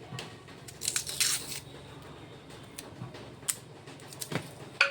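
Dry, papery onion skin being peeled off by hand, crackling and tearing in a short rustle about a second in, then a few small clicks.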